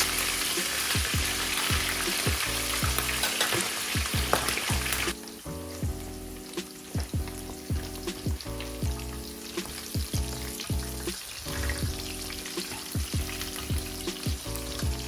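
Pieces of pre-boiled chicken frying in hot oil in a pan, a steady sizzle that is loud at first and drops suddenly to a softer sizzle about five seconds in. Soft background music with a steady beat plays under it.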